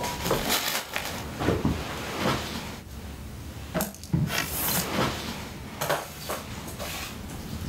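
Irregular knocks, clicks and short rustling noises of objects being handled.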